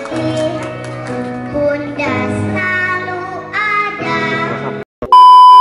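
A young girl singing into a microphone over backing music. Near the end the singing and music cut off, and a loud steady electronic beep follows.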